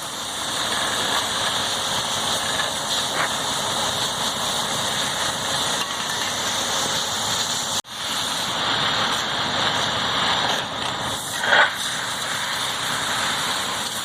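An engine running steadily under a heavy, even hiss, which breaks off abruptly about eight seconds in and then resumes.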